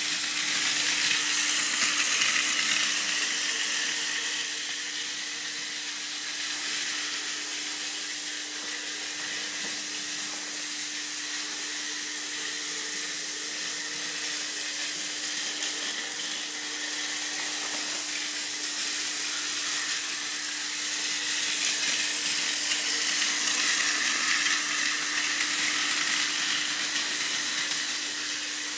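Battery-powered Plarail toy train, a Hitachi E653 series model, running on plastic track: a steady high motor and gear whine with the wheels rattling on the track. It grows louder twice as the train passes close, near the start and again about three-quarters through.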